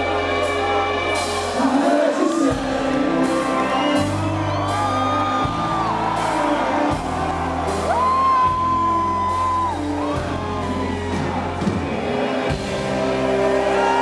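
Live rock band with electric guitar and drums playing the closing part of a song, with a voice holding two long sung notes and whoops and shouts from the audience.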